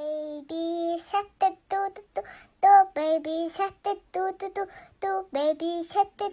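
A high, childlike voice singing a quick, choppy tune of short notes in rapid succession.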